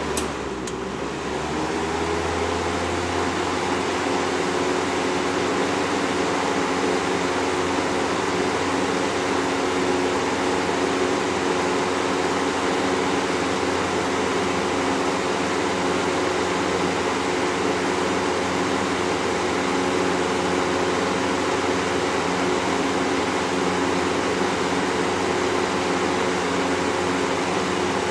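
1994 Lakewood Model 200 20-inch box fan with a 2001 Lakewood 200 motor running. A click comes about half a second in. Its motor hum then rises in pitch for a couple of seconds as it speeds up, and it settles into a steady hum over the rush of moving air.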